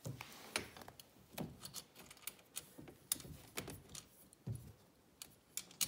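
Small metal hand tools clinking and tapping as a nylock nut on the kayak seat-frame bolt is tightened: irregular light clicks with a few dull knocks against the frame.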